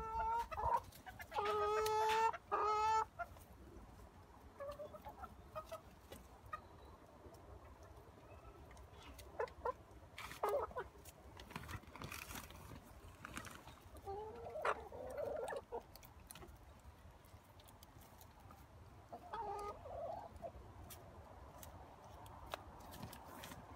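Domestic hens clucking, with one loud drawn-out call near the start and scattered short clucks after it.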